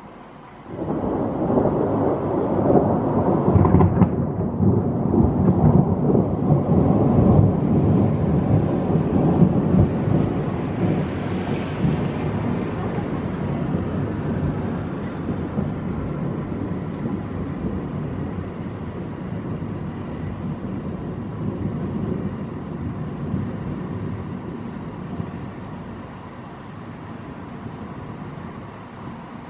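Rather loud thunder: a rumble that breaks in suddenly under a second in, stays strongest for about ten seconds, then slowly rolls away while still audible near the end.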